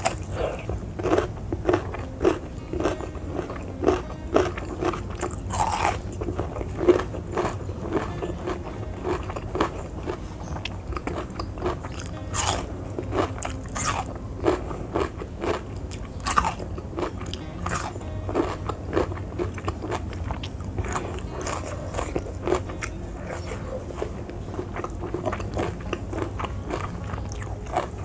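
Close-miked eating: a person biting and chewing crunchy raw vegetables, with many irregular crisp crunches, several a second.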